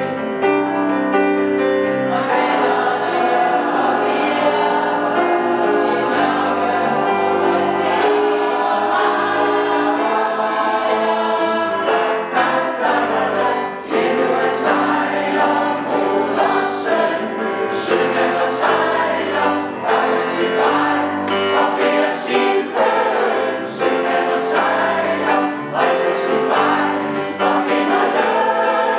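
Mixed choir of men's and women's voices singing a song in several-part harmony, holding long chords.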